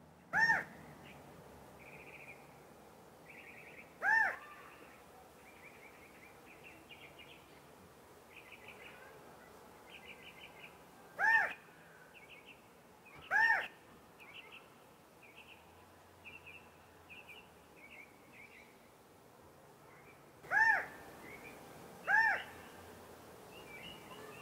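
California quail calling: six loud single notes, each rising then falling in pitch, a few seconds apart. Softer quick chirps run in between.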